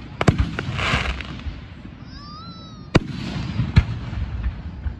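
Aerial fireworks going off: quick sharp pops and crackling in the first second, then two loud bangs of bursting shells about three and four seconds in.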